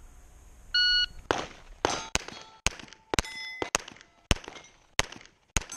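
Shot-timer start beep about a second in, then a fast string of about nine Glock pistol shots at steel targets, several followed by the ring of hit steel plates.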